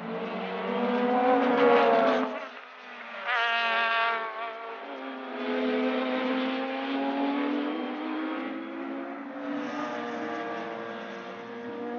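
Racing car engines at high revs passing on a circuit. One car goes by loudest about two seconds in, its pitch dropping as it passes. Then another engine revs up hard and falls back, followed by a steadier engine note that slowly sinks in pitch as it pulls away.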